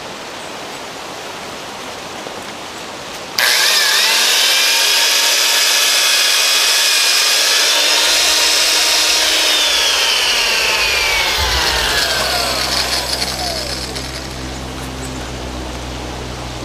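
Vintage Superpower Shopmate electric drill switched on about three seconds in, running with a high motor whine while boring a bolt hole into a wooden stump. It is then released and winds down with a long falling whine.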